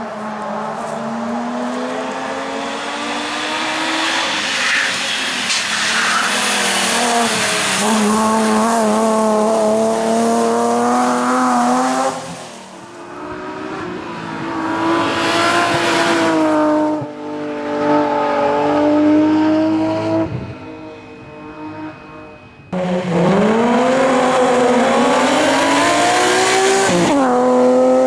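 BMW M3 rally car's engine revving hard, pitch climbing and falling repeatedly through gear changes and braking, with tyre squeal at times. The sound drops away and then comes back loud at full revs suddenly, about two-thirds of the way in.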